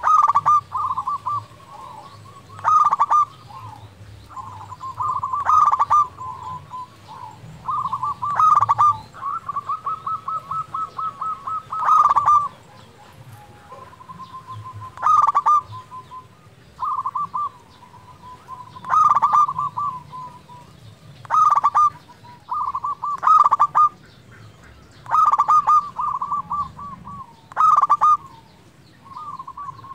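Zebra dove (perkutut) singing: repeated rolling, trilled cooing phrases around one pitch, one every two to three seconds, a few drawn out into longer trills.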